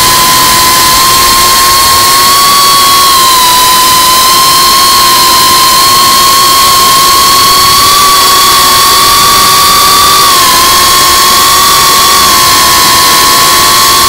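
GEPRC Cinelog35 FPV drone's motors and ducted propellers whining loudly at steady high throttle over a hiss of wind and prop wash, the pitch dipping slightly twice. Right at the end the whine falls sharply as the throttle comes off.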